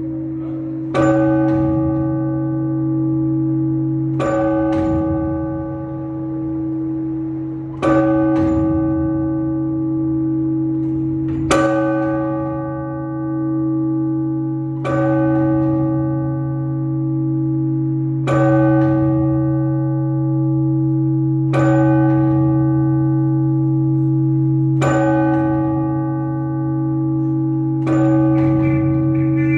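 Russian Orthodox church bell struck in slow, evenly spaced strokes, about one every three and a half seconds, its deep hum ringing on between strokes. This is ringing that calls people to the service.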